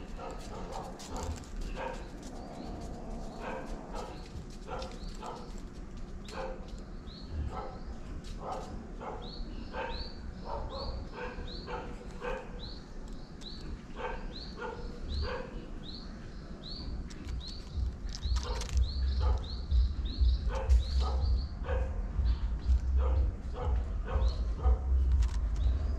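A dog barking in short, repeated yelps, with a bird chirping over it in a steady run of short high chirps, about two a second. A low rumble comes in over the last third.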